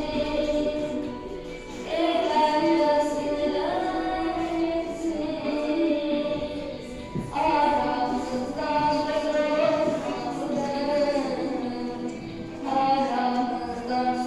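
A boy singing into a hand microphone over a music backing track, his voice amplified through a small loudspeaker. Long held notes come in phrases with short breaks about every five seconds.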